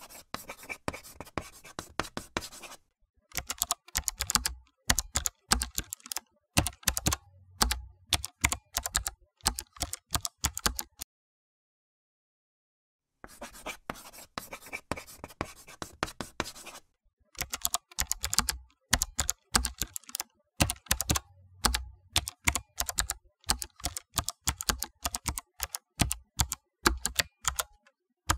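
Computer keyboard typing in quick bursts of keystrokes, stopping for about two seconds midway. Lighter, scratchier clicks come at the very start and just after the pause.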